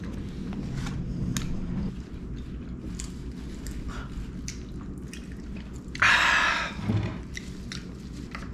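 A person chewing a mouthful of burger, with small wet mouth clicks over a low room hum. About six seconds in comes a short, loud burst of hiss-like noise lasting under a second.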